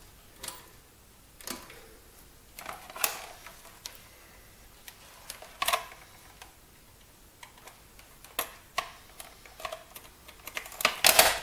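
Scattered light clicks and knocks of a Timex Sinclair 1000's plastic case and its cable plugs being handled as the connections are checked, with a quick run of clicks near the end.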